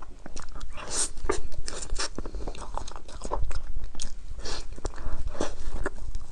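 Close-miked mouth sounds of a person biting and chewing a crunchy chocolate dessert: irregular crisp crunches and wet chewing.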